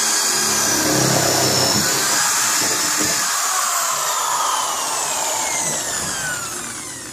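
Power drill boring a 1-inch hole into the door with a steady whirr, its motor whine slowly dropping in pitch as the bit bears down, easing off near the end.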